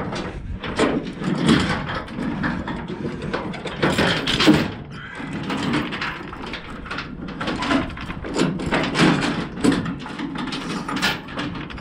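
Steel tie-down chains and hooks clanking and rattling against each other and the flatbed as they are handled, a steady run of metal clicks and knocks.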